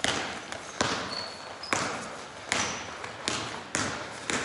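A basketball being dribbled on a hardwood gym floor, bouncing in a steady rhythm about every 0.8 seconds, each bounce echoing in the hall. A couple of short high squeaks come in between.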